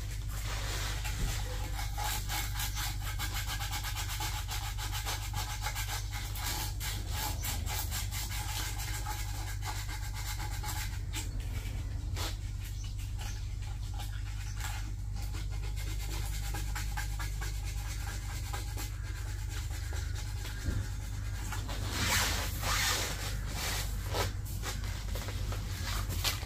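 Hands rubbing and scraping at a round floor drain fitting, many short strokes in an uneven run that gets louder for a moment about 22 seconds in. A steady low hum runs underneath.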